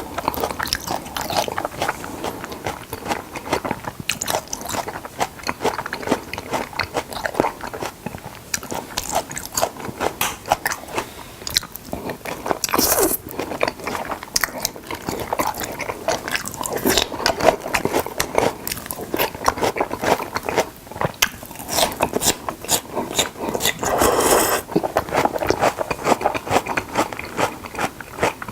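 Close-miked chewing of thick pieces of salmon: steady wet mouth clicks and smacks, with two longer, louder noisy sounds about thirteen and twenty-four seconds in.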